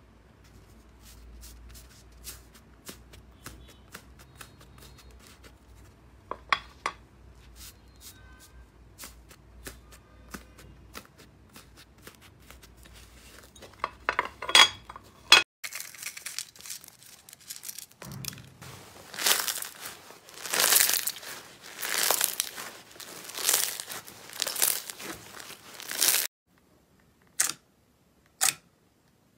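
Hands playing with slime. First come light clicks and taps of plastic carrot-shaped slime containers being handled and opened. Then slime is squeezed and stretched in loud squishy bursts about once a second, and near the end fingertips poke a clear blue slime with a few sharp pops.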